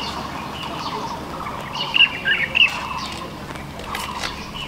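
A small bird chirps a few quick times about two seconds in, over a steady hiss of a thin stream of hot water poured from a kettle into a pour-over coffee dripper.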